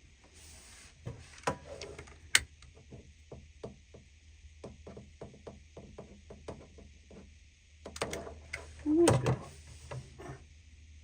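Small clicks and taps from handling a camper marker light and its wiring. There is a sharp knock about two seconds in, a run of light ticks after it, and a louder cluster of knocks near the end.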